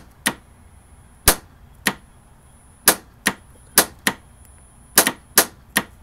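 Tesla Model S charge port latch clicking over and over, about ten sharp clicks, irregularly spaced and some in pairs, as it locks and releases the charge connector: the port won't hold the connector locked, so it doesn't charge.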